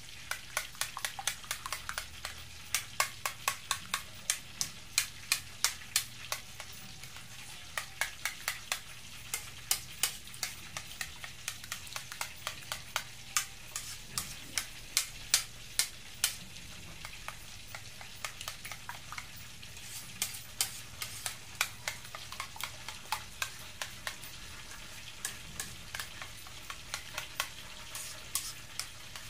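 A spoon stirring a thick mayonnaise-and-ketchup sauce in a ceramic bowl. The spoon makes quick wet clicks and scrapes against the bowl, a few a second, with a couple of short pauses.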